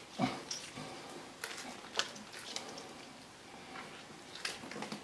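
Faint handling noises: a handful of short soft clicks and knocks with light rustling, as a freshly gutted roe deer carcass and its innards are handled.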